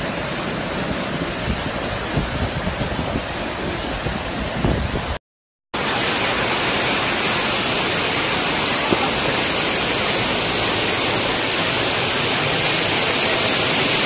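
Floodwater pouring over rock ledges as a waterfall, a steady rushing noise. It cuts out for half a second about five seconds in and returns as a louder, brighter hiss of water falling in a sheet close by from a cliff edge.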